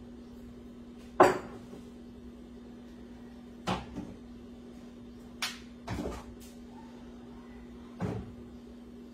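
Knocks and clunks of items being moved and set down inside an overhead kitchen wall cupboard: about five sharp knocks, the loudest about a second in. A steady low hum runs underneath.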